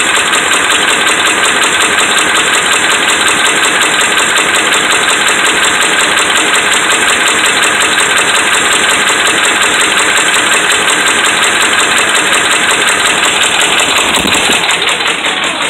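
Dodge Ram 5.7 Hemi V8 running, with a fast, steady metallic knocking heard close over the top of the engine, which the owner puts down to worn connecting rod and crankshaft bearings. The sound drops in level near the end.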